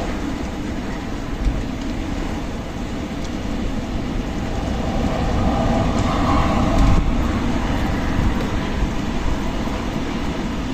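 Strong desert wind blowing steadily with a heavy low rumble, rising to a stronger gust about halfway through.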